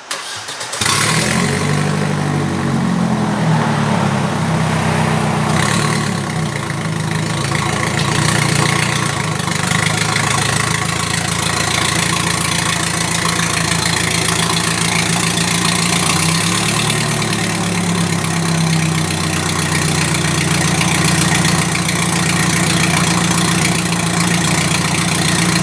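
1999 Audi A4 1.8T's turbocharged four-cylinder engine starting about a second in, its revs flaring and then settling into a steady idle. It runs unmuffled, with the muffler disconnected and an exhaust leak at the joint between the engine and the front pipe's catalytic converter.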